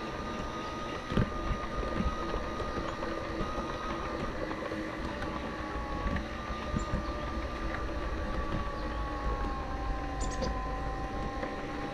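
Battery-powered G-scale model of a GE 25-ton diesel locomotive (Piko "Clean Machine") running along garden track. Its electric motor and gears keep up a steady two-tone whine over a low rumble, with occasional clicks and knocks from the running gear on the rails.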